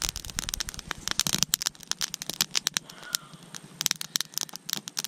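Freshly lit campfire of feather sticks and split kindling crackling, with rapid, irregular sharp pops and snaps, busiest in the first second or so.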